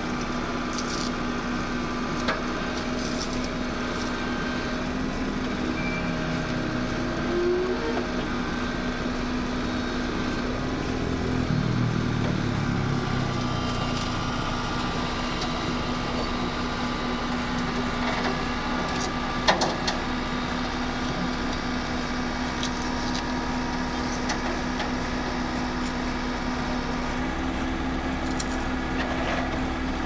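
Doosan DH55 mini excavator's diesel engine running steadily while the hydraulics work the boom and bucket, the engine note rising briefly under load about a third of the way in. There is a single sharp knock a little past the middle.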